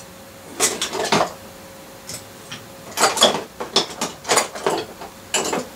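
Metal hand tools clinking and clattering as they are rummaged through in a toolbox, in several short bursts.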